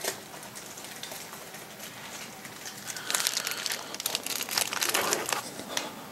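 Plastic bag wrapping crinkling as a brass model freight car is handled inside it, in a run of crackles from about halfway through, after a short click at the start.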